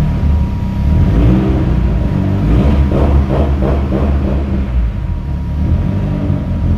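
Nissan S13's newly installed turbocharged engine idling through its new exhaust on its first run, a loud, steady, deep rumble.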